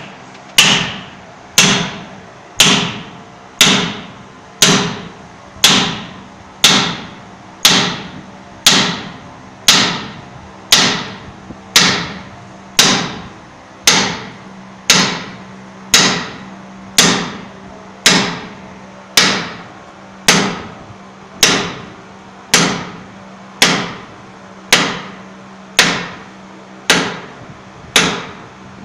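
Hammer striking a steel driver seated on a cylinder liner, driving the liner into a Nissan UD engine block: steady metal-on-metal blows about once a second, each with a brief ring.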